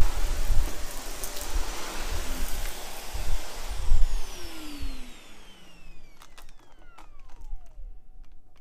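Shark Navigator upright vacuum running with low knocks, then switched off about five seconds in, its motor whining down in falling pitch. It has been sucking grit out of carpet.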